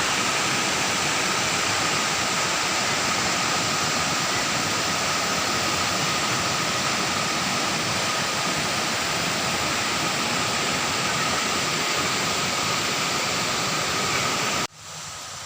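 Waterfall rushing in a steady, loud roar of falling water that cuts off abruptly near the end.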